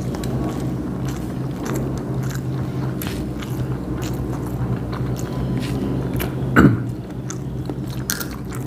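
Close-up chewing, smacking and small clicks of people eating rice and curries by hand, over a steady low hum. About two-thirds of the way in there is a brief louder sound that falls in pitch.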